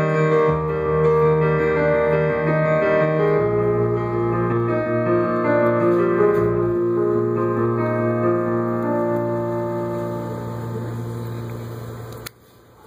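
Upright piano playing the closing chords of a slow song. The held notes slowly fade, then stop suddenly near the end.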